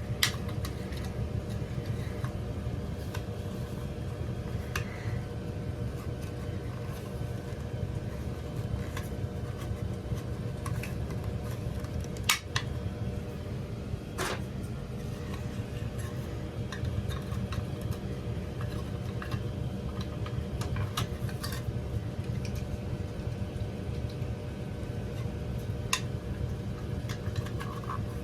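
Steady hum of running heating equipment, with a few light clicks and taps from handling parts.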